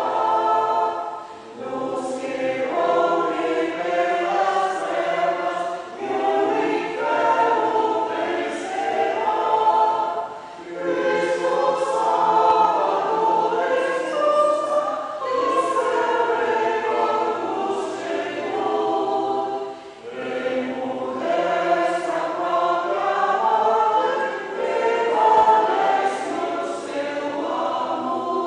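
A church choir of women and a few men singing a hymn together, in phrases of about four to five seconds with short breaks between them.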